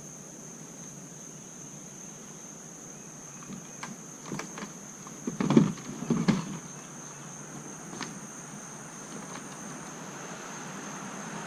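Insects, likely crickets, singing in a steady high-pitched chorus. A few knocks and thumps land about halfway through.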